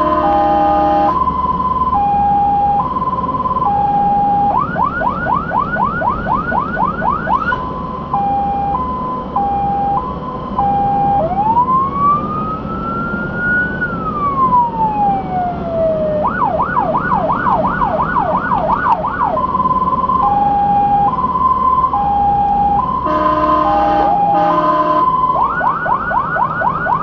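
Fire engine's electronic siren cycling through its modes: a high-low two-tone, a fast yelp of about four sweeps a second, and one slow wail that rises and falls over about five seconds. There are short horn blasts at the start and twice near the end, over the truck's low engine and road rumble.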